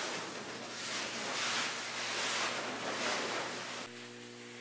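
A large white sheet rustling in several swelling waves as it is pulled and gathered off a table. About four seconds in the rustling stops suddenly, leaving a steady electrical hum.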